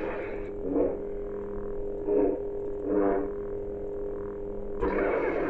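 Lightsaber sound board (NBv3) in a Graflex 2.0 hilt playing its steady electric blade hum, rising into swing swooshes about four times as the lit blade is swung, the last near the end sharper and brighter.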